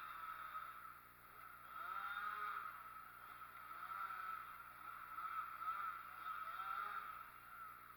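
Chainsaw engine running, its pitch rising and falling repeatedly as it revs up and settles back.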